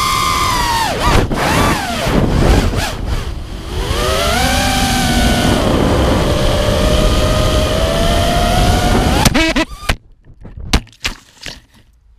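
Brushless motors of a 5-inch FPV quadcopter (Lumenier RX2206 2350Kv with tri-blade props) whining, their pitch rising and falling with the throttle, heard from the onboard GoPro with wind noise. About nine seconds in a loud hit marks the crash, the motors cut out, and a few sharp knocks follow as the quad tumbles into the grass.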